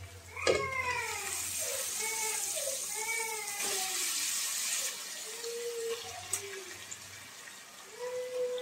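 Raw chicken pieces dropped into hot oil and masala in a steel wok, sizzling hard, the sizzle dying down after about four seconds.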